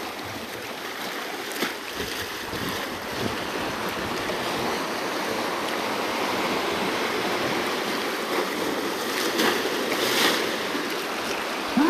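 Small waves washing and splashing over a rock ledge at the water's edge: a steady wash of water with a few short, louder moments.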